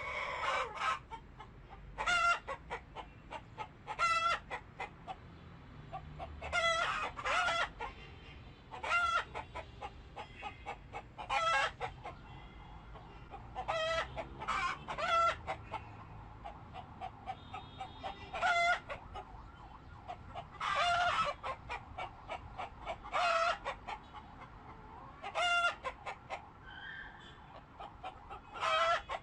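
Domestic poultry calling: short, loud calls repeated every second or two, with quieter calls in between.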